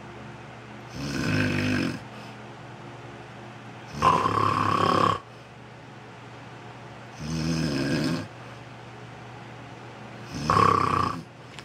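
A person snoring heavily: four snores about three seconds apart, with the lower, rattling ones alternating with sharper, higher-pitched ones.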